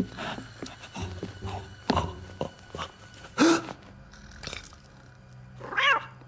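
Animated cartoon cat yowling and meowing in several wavering calls, with a loud call about three and a half seconds in and a quavering one near the end, among scattered short knocks and clicks.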